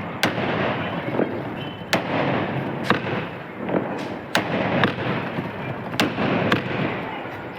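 Sky shot aerial firework cake firing: about nine sharp bangs at uneven intervals, with a hissing crackle between them.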